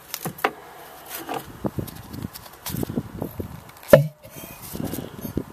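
Handling noise: a string of soft knocks and rustles with one sharp knock about four seconds in, as hands move the opened compressor and the camera about.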